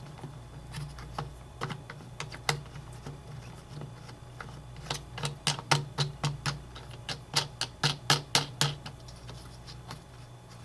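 Small sharp clicks and taps of a bolt and nut being fitted through a leaf blower's plastic throttle lever and tube. They come sparsely at first, then in a quick irregular run of louder clicks about halfway through as the nut is worked on.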